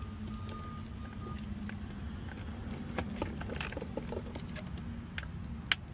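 Plastic wiring-harness connectors and loose wires rattling and clicking as they are handled in a dashboard fuse and relay panel, with one sharper click near the end. A steady low hum runs underneath, and a faint thin high tone sounds in broken pieces during the first second and a half.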